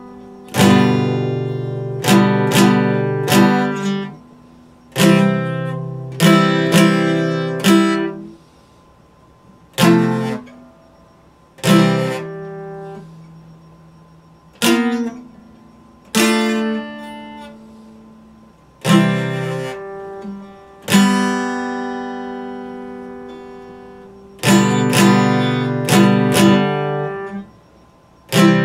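Epiphone acoustic guitar strummed: chords struck in quick groups of three or four, and single chords left to ring out and fade, with short pauses between.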